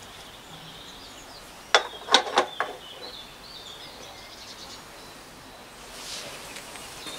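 A quick cluster of sharp clicks and knocks about two seconds in, as a pulley is handled and pushed onto the belt sander's drive shaft. Small birds chirp faintly behind.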